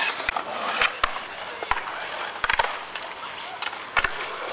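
Skateboard rolling on concrete, with several sharp clacks of the board and wheels hitting the ground, the loudest about a second in and near the end.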